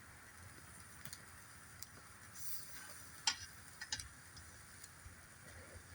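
Campfire crackling quietly: a handful of sharp, irregular pops over a faint hiss, the loudest pop a little past the middle.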